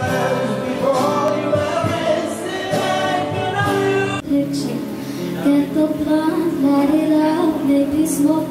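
A woman singing to her own electric guitar accompaniment. The music changes abruptly to a different passage about four seconds in.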